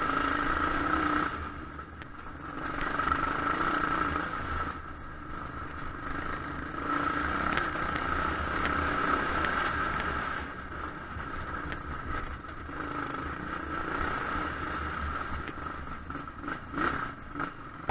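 Suzuki DR Big 750 S big single-cylinder engine under way, the throttle opened and eased off in repeated surges a few seconds apart. Rattling from the bike on the rough gravel, with a few sharp knocks near the end.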